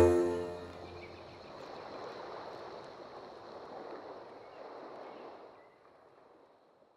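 The song's final chord cuts off and its ring dies away within the first second, leaving a faint steady rushing noise that fades out about six seconds in.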